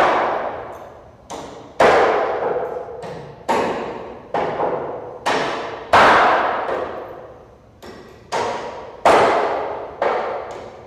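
Hammer blows struck at an irregular pace, about a dozen, each followed by a long echoing decay that fades over a second or more. Some blows are harder than others.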